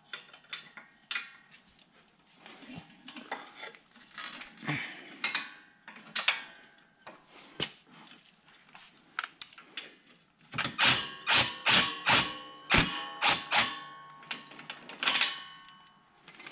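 Metal hand tools working bolts on an ATV bumper bracket: scattered light clinks and taps, then, from about ten and a half seconds in, a quick run of loud metallic clicks with a short ring, about four a second for some three seconds, as a ratcheting wrench turns a bolt.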